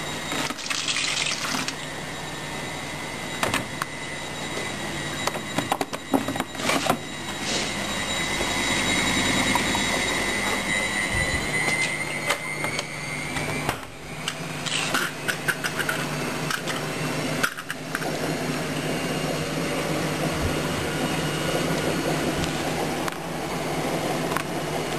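Washing machine running mid-cycle: water sloshing and rushing over a steady low hum, with scattered clicks and knocks. A high whine rises a little about a third of the way in.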